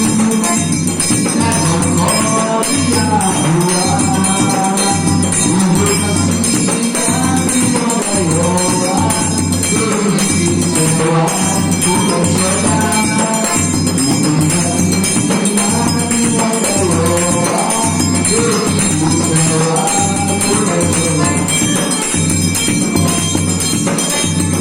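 Eight-bass button accordion (sanfona de oito baixos) playing a melody over a steady pulsing bass accompaniment.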